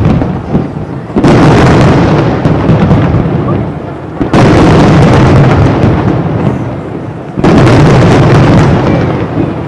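Aerial fireworks shells bursting in quick succession: sudden loud blasts right at the start, about a second in, at about four seconds and at about seven and a half seconds. Each blast rolls on for a few seconds and slowly fades before the next one.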